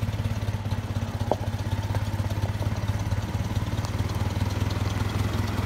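Ford 601 Workmaster tractor's four-cylinder engine running steadily at low speed, a fast, even, low-pitched putter with no revving.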